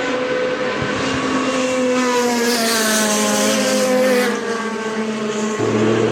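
Lamborghini Murciélago R-SV GT1 race car's 6.5-litre V12 engine running hard, its note climbing steadily in pitch and then dropping away about four seconds in. A steadier, lower engine note takes over abruptly near the end.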